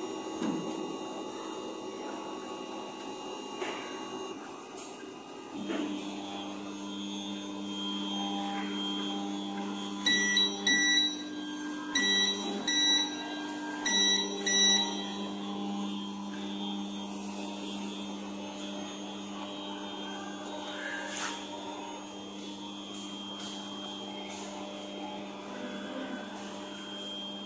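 3D printer running as a print starts: a steady hum from its fans and stepper motors that grows stronger about six seconds in. About ten seconds in come three pairs of short, loud, high electronic beeps.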